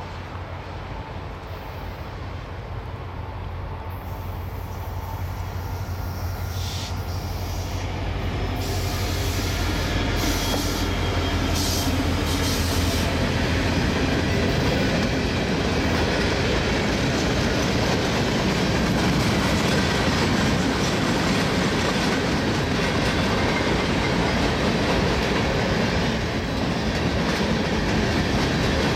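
Union Pacific freight train approaching and passing. The diesel locomotives' low rumble grows louder over the first ten seconds or so. After that comes a steady rumble and clatter of freight cars rolling by on the rails.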